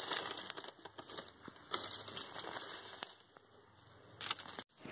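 Faint rustling and crinkling with scattered small clicks as a hand handles balloon vine plants and the plastic grow bag they grow in, with a brief louder rustle about four seconds in.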